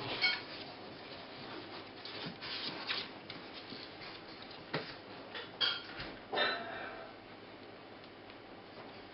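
Four-week-old Border terrier puppies shuffling and scratching about on a carpeted whelping-box floor, with a few short high squeaks and whimpers: one right at the start and two around six seconds in.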